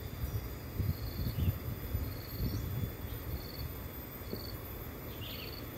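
An insect chirping in short high pulsed trills, repeating about once a second, over a low uneven rumble on the microphone.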